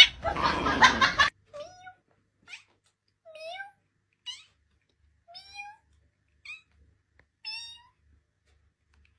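A loud noisy burst for about the first second, then a cat meowing in about seven short, high calls, some bending in pitch, spaced roughly a second apart.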